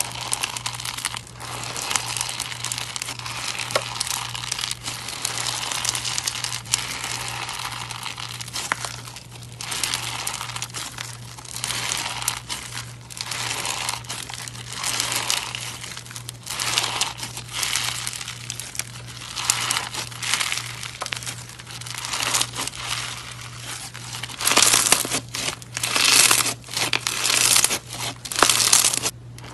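Glitter-flake slime squeezed and pulled apart by hand, crackling and crinkling continuously, with louder bursts of crackle near the end. A steady low hum runs underneath.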